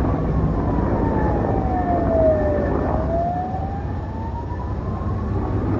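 Emergency vehicle siren in a slow wail, its pitch falling for about two and a half seconds and then rising again, over a heavy low rumble.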